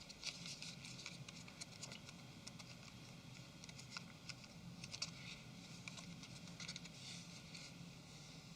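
Faint, scattered small clicks and taps of phone parts and small tools being handled, irregular, over a low steady hiss.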